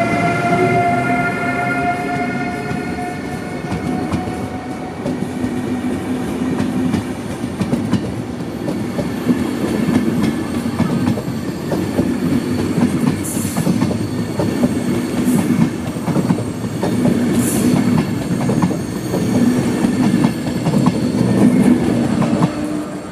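ÖBB Railjet train rolling past on the platform track. The electric locomotive's whine falls in pitch and fades over the first few seconds. Then the coaches' wheels rumble and click over the rail joints, with three brief high wheel squeals partway through, before the sound dies away at the end.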